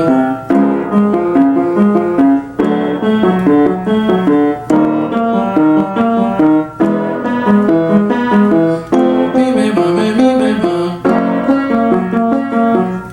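Piano playing a vocal-exercise accompaniment: a short phrase of stepped notes, repeated about every two seconds with a brief break between phrases.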